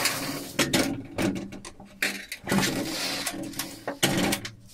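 Irregular clicks, knocks and rubbing, close to the microphone.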